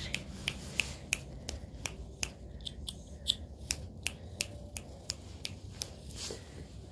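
A string of short, sharp clicks, about three a second at a fairly even pace.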